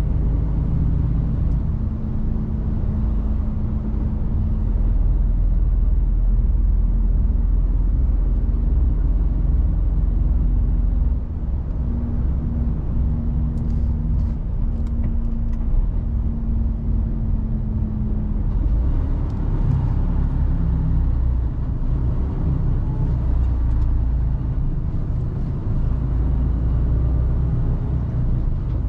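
Mercedes-Benz Actros truck heard from inside the cab while driving: a steady engine drone and road rumble. A steady hum runs through the first part and ends about two-thirds of the way in, after which the sound turns rougher.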